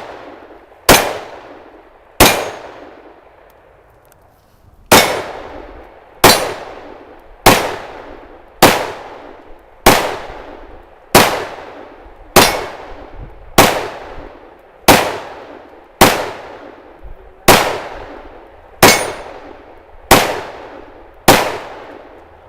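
Glock 31 Gen 4 pistol in .357 SIG fired in slow, steady single shots, sixteen in all, about one every 1.2 seconds, with a short pause after the second. Each shot cuts in sharply and its echo fades before the next.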